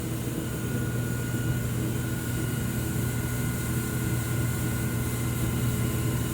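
Steady low machine hum with a strong mains-pitched drone and a faint high tone about half a second to two seconds in.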